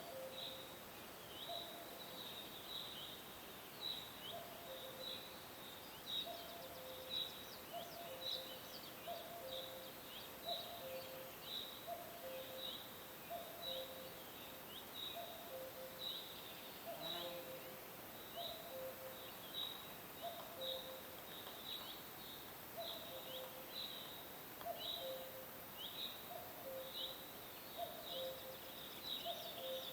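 Nature soundscape of repeating animal calls, likely birds: a short, high falling chirp repeated a little more than once a second, over a lower, longer call that also repeats about once a second, both in a steady rhythm over faint background hiss.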